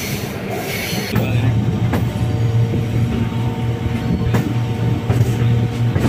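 Electric MEMU train running: a steady low hum with a few sharp clacks.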